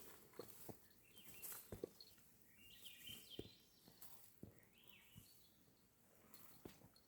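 Near silence: faint outdoor ambience with a few soft, irregular ticks and faint high chirps.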